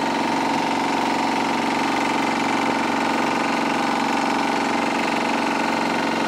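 Longtail boat's engine running very loud and steady, heard from on board, with no change in pitch.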